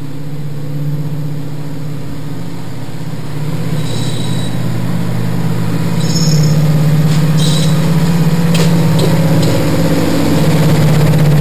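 Class 55 Deltic diesel locomotive's twin Napier Deltic two-stroke engines running with a steady deep drone as it pulls away, growing louder about six seconds in. A few sharp clicks come near the end.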